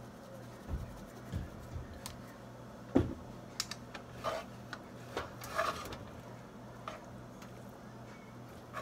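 A plastic spoon stirring fried rice in a cast-iron skillet: irregular knocks and scrapes against the pan, the sharpest about three seconds in, over a steady low hum.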